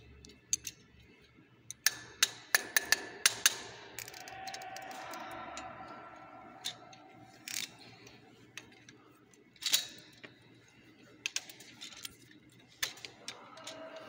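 Sharp metallic clicks and taps from a screwdriver and the metal mounting bracket and threaded rods of a fire-sprinkler valve tamper switch being fitted: a quick run of clicks about two seconds in, then scattered single clicks later on.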